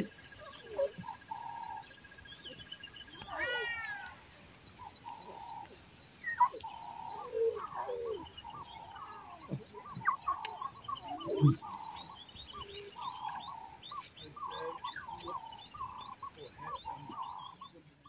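Young lion cubs mewing in many short, repeated calls, contact calls to their mother and hidden siblings, with a deeper call from the lioness about eleven seconds in. Small birds chirp in the background.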